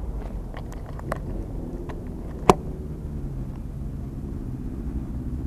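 Steady low rumble of city street traffic with wind on the microphone, a few small clicks, and one sharp click about two and a half seconds in.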